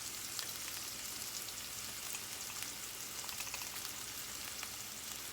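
Chicken tenders frying in oil in a hot pan: a steady sizzling hiss with small scattered crackles.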